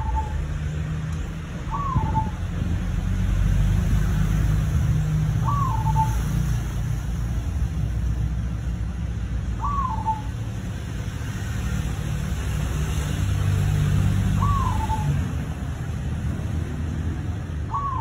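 Zebra dove (perkutut) cooing: a short hooked call repeated six times, a few seconds apart, over a steady low rumble.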